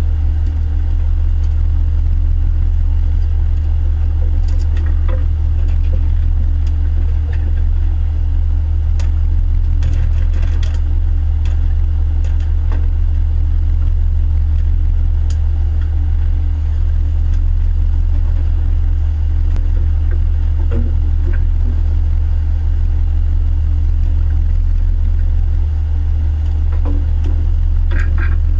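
Fishing boat's engine running steadily with a low drone, and a few knocks and clatter of gear on deck, one cluster about ten seconds in and another near the end.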